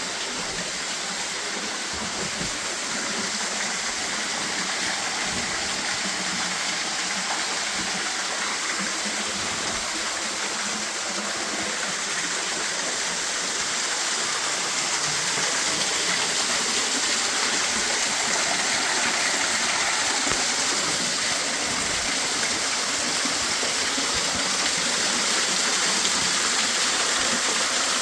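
Small waterfall of about four feet spilling into a creek, a steady rush of falling water that grows slightly louder in the second half.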